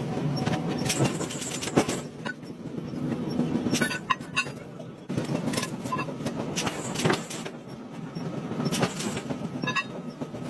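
Metal clanking and clinking, with irregular sharp knocks over a steady mechanical rumble, as in forging work.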